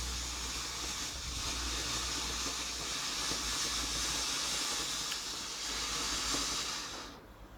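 A ground firework still burning, giving off a steady hiss that dies away about seven seconds in.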